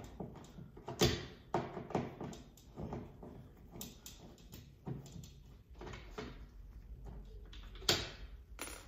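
Screwdriver and plastic thermostat wall plate being worked by hand at the wall: scattered small clicks and rattles, with a sharper knock about a second in and another near the end.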